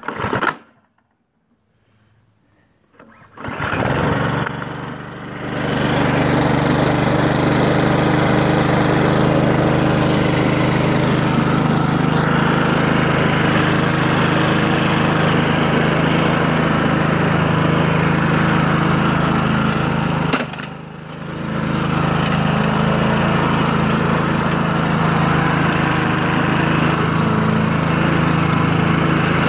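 Yard King lawn mower's four-stroke Chonda (Honda-copy) engine being pull-started. A short burst comes as the cord is pulled, then about three seconds of near silence. The engine starts and settles into steady running, dipping briefly about twenty seconds in.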